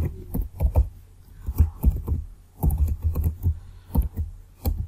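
Typing on a computer keyboard: a quick, irregular run of key clicks as a short phrase is typed.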